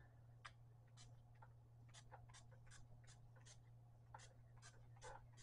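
Faint, quick spritzes of a NYX dewy setting spray's pump mist bottle, about a dozen short hisses in rapid succession.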